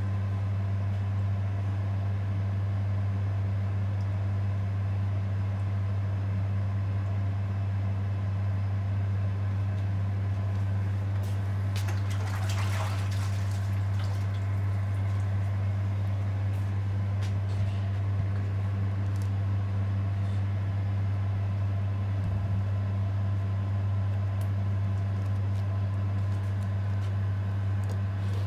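A steady low hum throughout, with a brief soft rustle about halfway through and a few faint clicks.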